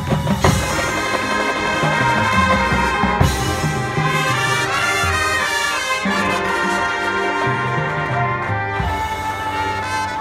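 Marching band playing, the brass section sounding full chords over a moving low bass line, with a percussion hit about half a second in.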